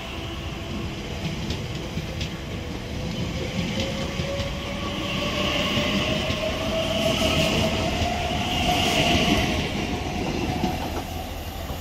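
Elizabeth line Class 345 electric train pulling away from the platform, its traction motors whining in a tone that rises steadily as it gathers speed, over the rumble of the wheels and a hiss.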